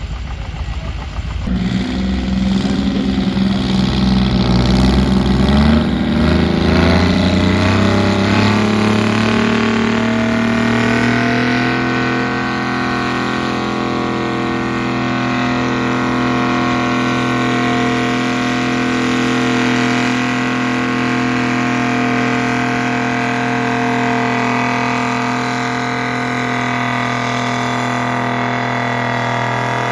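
Massey Ferguson tractor engine under full load pulling a weight-transfer sled. It starts about a second and a half in, climbs in pitch for several seconds, then holds steady and loud.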